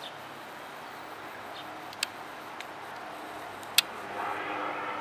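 Distant engine noise of a departing twin-turboprop airliner climbing out after take-off, a steady rushing drone that grows louder about four seconds in. Two sharp clicks, a second and a half apart, cut through it.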